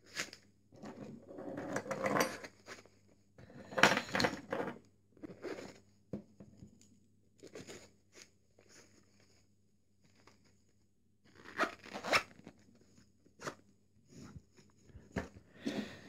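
A fabric gear organizer pouch being handled: a string of short ripping and rustling sounds. The loudest come about two and four seconds in, with a quiet stretch in the middle.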